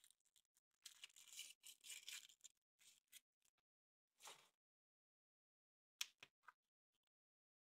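Crinkly wrapper being handled and torn open: a dense rustle lasting about two seconds, a short swish a little later, then a sharp click about six seconds in followed by a few faint ticks.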